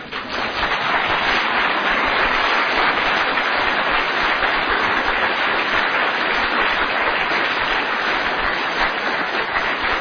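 Audience applauding: a dense, steady clatter of many hands clapping that starts suddenly.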